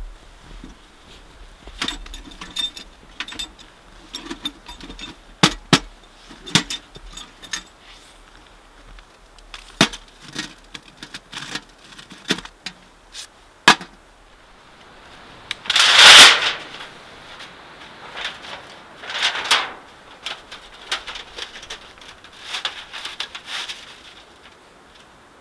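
Small camping gear being handled: scattered clicks, clinks and knocks of metal and plastic pieces, with cloth rustling, and one loud swishing rustle about two-thirds of the way through.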